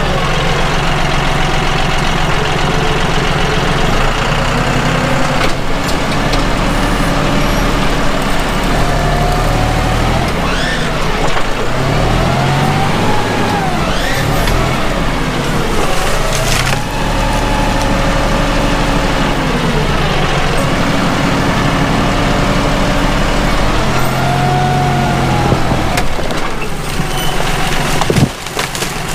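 John Deere 5055E tractor's diesel engine running under load, its pitch rising and falling repeatedly as the grapple bucket pushes over a hung-up tree, with several sharp wood cracks as the tree breaks and comes down.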